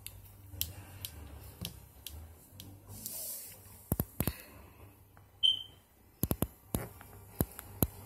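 Sharp clicks and taps at uneven intervals, several in quick pairs, with one short high-pitched beep about five and a half seconds in, the loudest sound.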